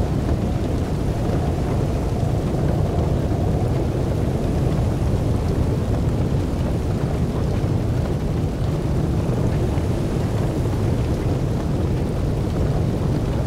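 Steady low rumbling noise with no distinct events, like wind buffeting a microphone in blizzard weather.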